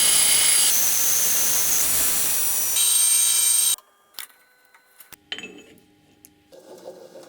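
A power tool running with a loud hiss and a high whine that jumps in pitch a couple of times, then cuts off suddenly about four seconds in. Faint clicks and light handling noises follow.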